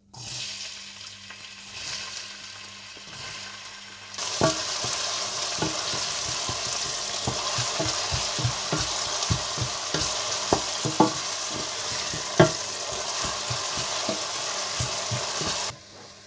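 Chopped onions sizzling in hot oil in a stainless steel pot. The sizzle gets much louder about four seconds in, and a wooden spatula knocks and scrapes against the pot as the onions are stirred; the sound drops off suddenly near the end.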